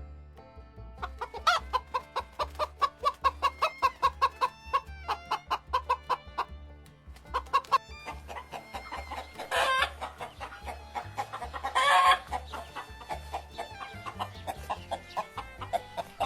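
Chickens clucking in quick repeated runs, with two louder, longer calls about ten and twelve seconds in, over background music with a steady low beat.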